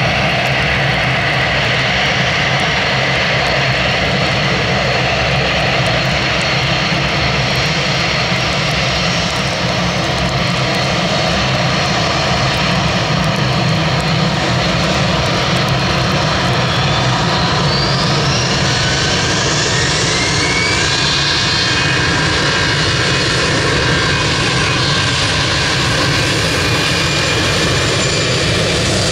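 Airbus A320 jet engines running steadily, then from a little past halfway a rising whine as they spool up to takeoff thrust, holding high to the end.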